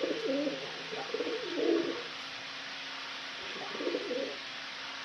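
Male domestic pigeon cooing: a rolling run of low coos over the first two seconds, then one shorter coo near the end, in the courting display of a cock pigeon toward a newly paired hen.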